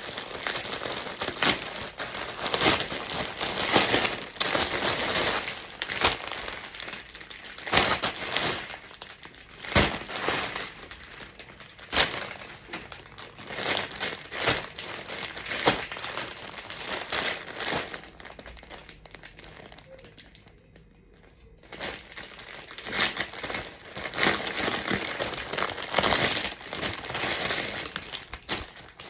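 Packaging being handled and crumpled: a crinkling rustle that comes in surges with sharp crackles, pausing briefly about two-thirds of the way through.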